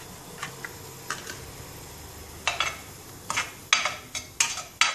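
Diced pancetta being stirred in a non-stick frying pan: a utensil scraping and knocking against the pan about six times in the second half, over a faint sizzle of the pancetta starting to fry in hot oil.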